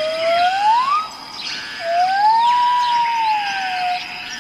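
Forest birdsong: two long, pure whistled notes, the first rising, the second rising, holding and falling over about two seconds. Behind them are many small twittering chirps and a steady high buzz like insects.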